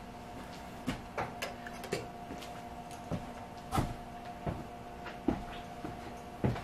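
Irregular knocks and clunks of equipment being handled at a manual screen-printing press, about eight in all, the loudest near the middle and at the end, over a steady machine hum.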